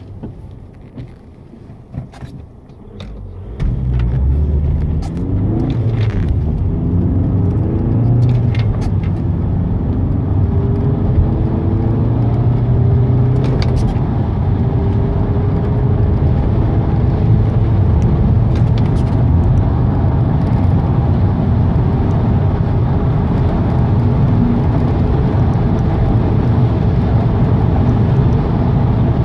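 Audi A3 8P's 2.0 TDI 140 bhp four-cylinder turbodiesel heard from inside the cabin: idling for about three and a half seconds, then accelerating hard from standstill to about 100 mph. The engine note climbs in pitch through each gear and drops back at each shift.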